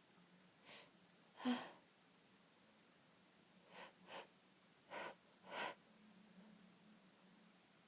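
A woman's short, breathy catching inhales as a sneeze builds but doesn't come: six quick breaths in a small room, the second the loudest, with the later ones in two pairs.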